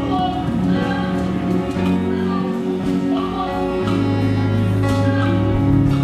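A choir singing a hymn in Yoruba with instrumental accompaniment, over held bass notes that change every two seconds or so.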